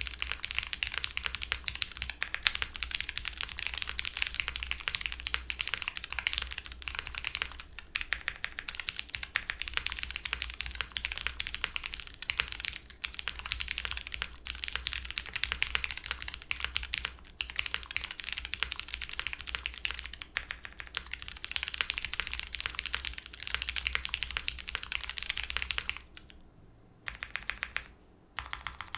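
Fast typing on an Owlab Mr. Suit mechanical keyboard fitted with lubed Cherry MX Brown Hyperglide switches on a polycarbonate plate, GMK keycaps, and plate and case foam: a continuous stream of rapid keystrokes with short pauses, thinning to a few scattered keystrokes near the end.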